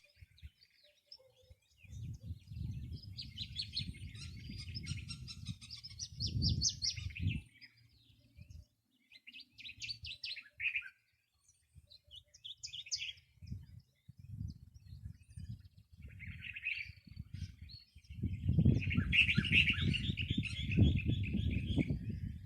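Several wild birds chirping and singing, with rapid trills of repeated high notes, a long one near the start and another near the end. Gusts of low rumbling noise come and go underneath, loudest in the last few seconds.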